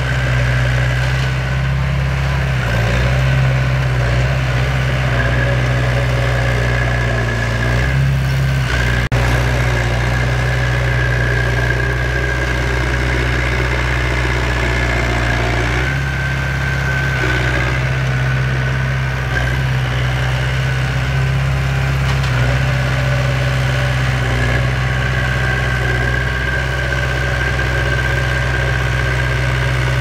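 Heavy diesel engines of a bulldozer and an excavator running steadily under working load. The low engine note shifts a few times as the load changes.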